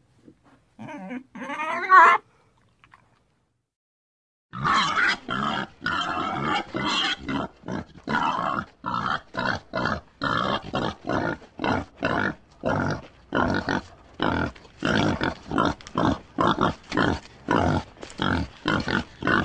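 Pig grunting over and over in short, rough grunts, about two a second at uneven spacing, starting a few seconds in after a pause. Before the pause comes a brief wavering high cry.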